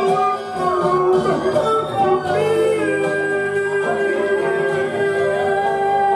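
A man singing karaoke into a microphone over a backing track played through a PA speaker, with long held notes in the second half.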